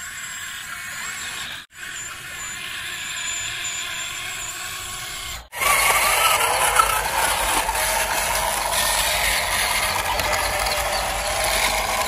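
Mechanical whirring and grinding from toy construction vehicles. It stops briefly twice at edits and is louder after the second one.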